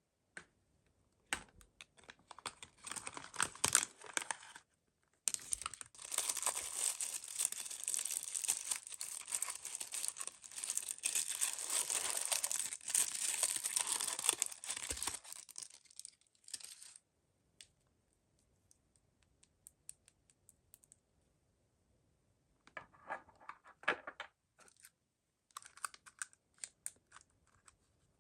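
Mystery-toy packaging being torn open and crinkled by hand, with a long stretch of steady rustling and crackling in the middle. After a quiet pause it returns as a few short crinkles near the end.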